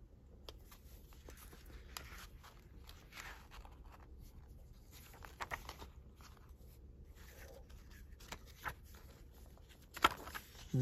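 Faint rustling and light clicks of planner pages and paper inserts being handled and shifted, with a sharper click about ten seconds in.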